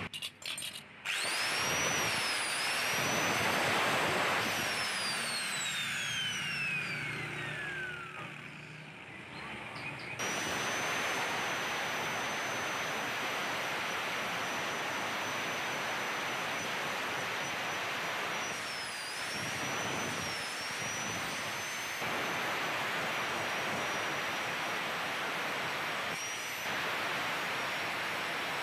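Hand-held angle grinder with a sanding disc spins up, runs, then is switched off and winds down, falling in pitch. About ten seconds in it starts again and runs steadily, its whine dipping briefly a few times as the disc bears on the metal. It is grinding down the nut on a Yamaha Mio's CVT clutch so that the nut no longer rubs against the clutch bell, the contact behind the rattle.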